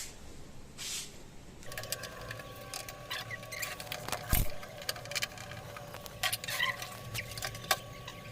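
Clicking and rattling of hands and tools working on an RO water purifier's plastic housing and screws as it is taken apart, with one heavy thump about four seconds in.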